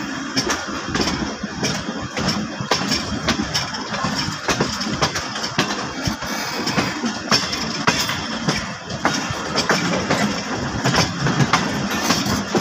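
Passenger train running, heard from an open coach window: a steady rumble and rush of air with frequent, irregular clicks and clacks of the wheels over rail joints and points.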